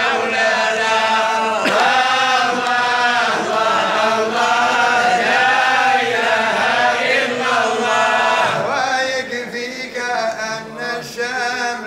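A group of men chanting Sufi madih (devotional praise) in unison, in long drawn-out melodic lines. About eight and a half seconds in the chant grows quieter and a new phrase begins.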